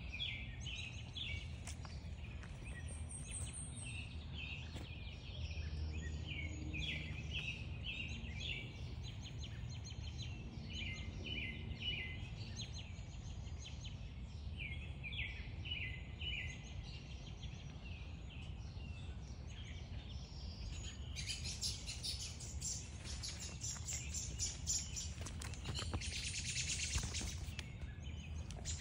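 Small birds chirping and singing in short repeated phrases over a steady low background rumble. About two-thirds of the way through, a dense high buzzing trill joins in, loudest near the end.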